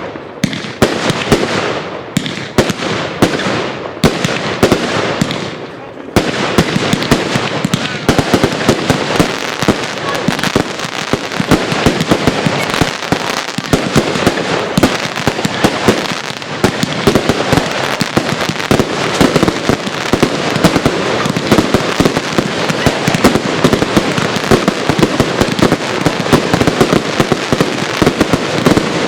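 Firework cakes being fired: a run of separate bangs, roughly two a second, then from about six seconds in a dense, continuous barrage of rapid shots and crackle.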